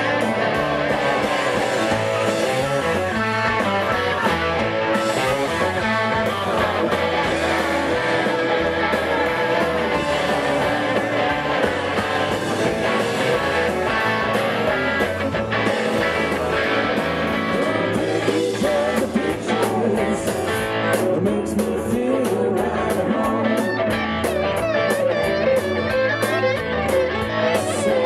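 Live southern rock band playing, led by electric guitars over drums, bass and keyboards, loud and without a break.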